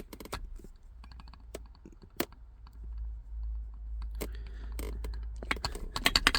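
Aftermarket short shifter assembly in a Nissan 350Z being worked by hand, giving scattered sharp clicks and rattles, with a quick run of clicks near the end. The owner finds the shifter a little loose and suspects it lacks grease.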